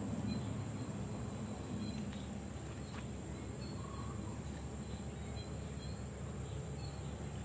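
Outdoor rural ambience: a steady high insect drone with faint, scattered short chirps over a low rumble.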